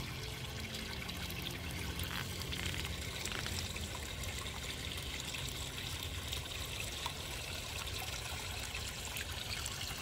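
Small pond fountain trickling and splashing steadily, the water from a pump-fed nozzle falling back into the pond.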